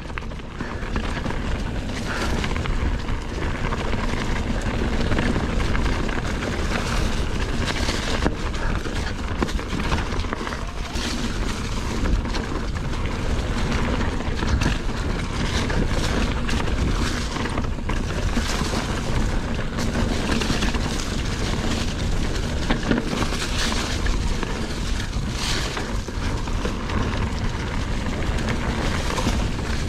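Mountain bike ridden fast down rough singletrack: wind buffeting the microphone, tyres rolling over dirt and rock, and frequent knocks and rattles from the bike as it hits bumps.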